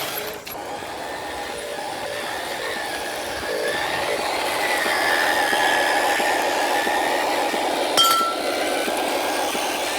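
Radio-controlled model truck running, its electric motor and gearbox whining with a pitch that rises and falls through the middle, over a steady mechanical rattle. A sharp click about eight seconds in.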